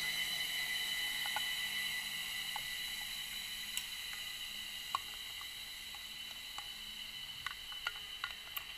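Underwater recording through a camera housing: a steady high electronic whine with scattered faint clicks and ticks, slowly growing quieter.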